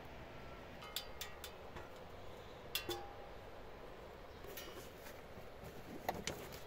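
Wood campfire crackling: a few scattered sharp pops and clicks, one briefly ringing, over a steady low hiss.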